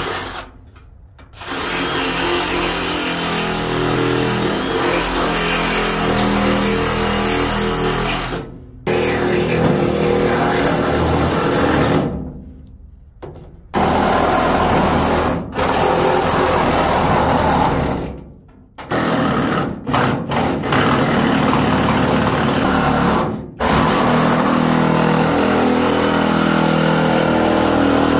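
Reciprocating saw cutting through the steel bed side of a square-body Chevy pickup. It runs in loud stretches of a few seconds, stopping briefly several times as the cut goes along the panel.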